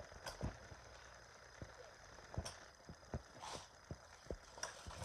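Faint, irregular light clicks and knocks over a low outdoor rumble, from kick scooter wheels and decks on a concrete skate park.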